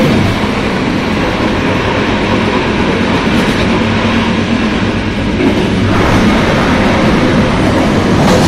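Passenger train hauled by an E444R electric locomotive running on the rails: a loud, steady rush and rumble of wheels on track with a faint low hum.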